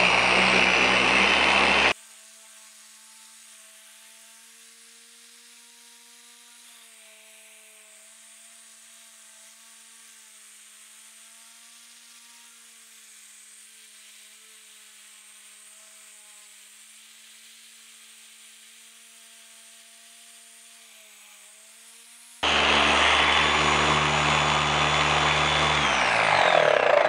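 Dual action polisher with a foam cutting pad running against clear coat, loud, cutting off abruptly about two seconds in. A long stretch of faint steady hum follows. The polisher comes back loud near the end, and its pitch falls just before the end as it slows.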